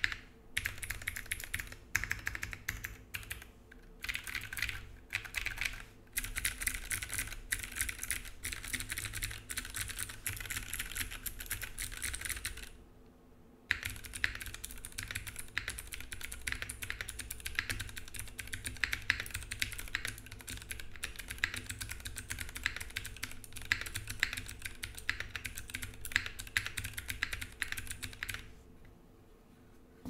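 Typing on a Cornetto 60 mechanical keyboard with Milkstotle 65 g switches, GMK Toxic ABS keycaps and an FR4 plate in a pin-mounted sandwich build. Keystrokes come in short bursts at first, then as steady fast typing with a pause of about a second just before the middle. The typing stops near the end.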